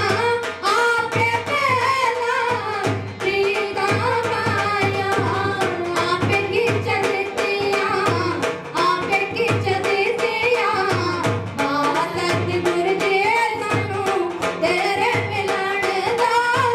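Music: a voice singing a wavering melody over a steady drum beat.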